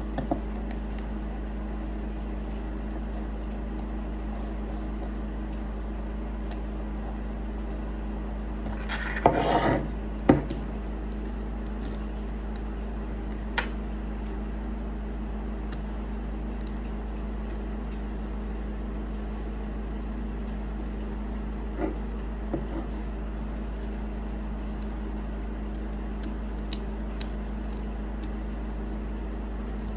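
A steady low hum runs throughout. About nine seconds in, wood scrapes briefly, followed by a single sharp knock. A few faint clicks come later.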